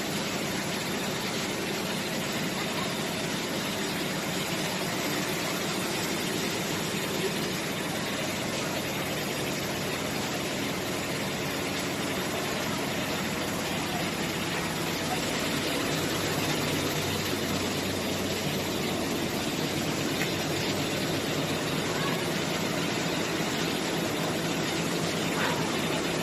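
Industrial mattress-making machine running steadily, a dense, even mechanical whirr.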